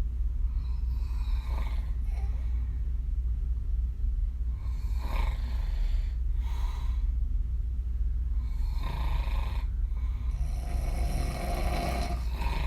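A woman snoring with her mouth open through several slow breaths, her lips puffing out on the breaths out. A steady low hum runs underneath.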